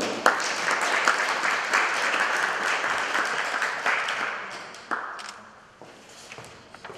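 Audience applauding: dense clapping that fades away over about five seconds, leaving a few scattered clicks.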